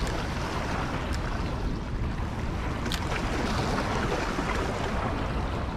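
Steady rush of water flowing below a dam, with a couple of faint ticks.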